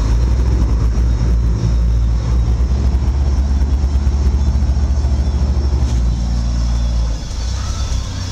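Sportfishing boat's engine running steadily, a deep drone with a continuous hiss over it. The engine note drops a little about seven seconds in.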